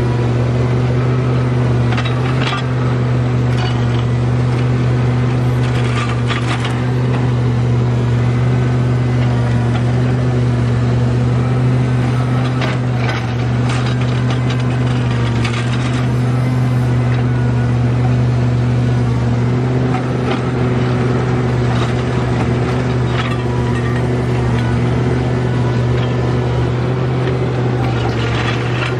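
Komatsu PC650LC excavator's diesel engine running steadily under working load while its single-tooth ripper tears through earth and rock, with brief scrapes and knocks of rock against the steel now and then.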